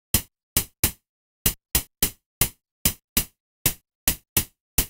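Synthesized snare drum built in VCV Rack from a noise generator through filters and a short envelope, with a light delay mixed in, struck about a dozen times in an uneven rhythm. Each hit is a short noisy crack that dies away within a fraction of a second.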